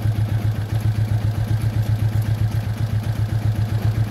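Suzuki Skywave scooter's single-cylinder four-stroke engine idling steadily and evenly on a newly fitted Mio carburetor, its air screw set at about three and a half turns.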